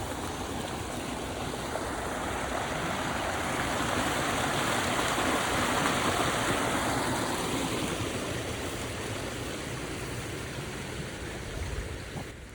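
Water draining out of a farm pond, rushing down the creek channel below the dam: a steady rushing that grows louder toward the middle and eases off toward the end.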